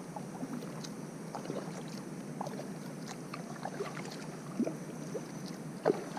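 Water lapping around a kayak hull, a steady wash of noise with scattered small ticks and two louder knocks near the end.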